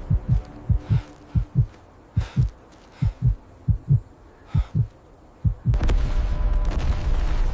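Heartbeat sound effect: low double thumps, lub-dub, about one pair every three quarters of a second. About five and a half seconds in, a loud low rumble starts.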